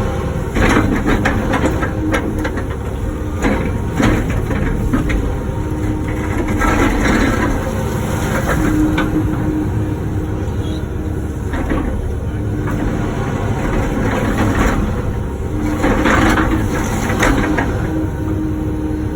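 Wacker Neuson ET145 excavator's diesel engine running steadily under load, with a tone that comes and goes as the hydraulics work. Scattered knocks and scrapes as the bucket breaks out blacktop and concrete.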